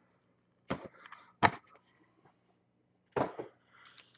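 Stack of foil-wrapped football card packs being shuffled and knocked against the table: a few short knocks with packet rustle, over a faint steady hum.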